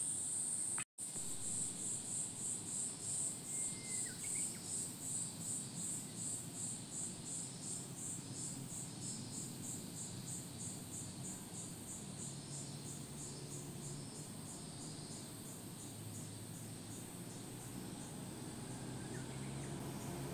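Insects calling in a high, pulsing drone, about two to three pulses a second, that evens out and weakens about halfway through, with a faint low hum coming in later.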